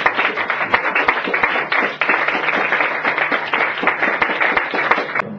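Audience applauding, a dense run of clapping that stops abruptly shortly before the end.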